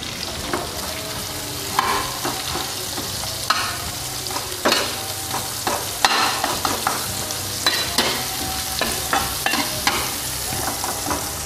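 Garlic and sliced onion sizzling in hot oil in a non-stick frying pan, stirred with a metal spatula that scrapes and clicks against the pan at irregular moments.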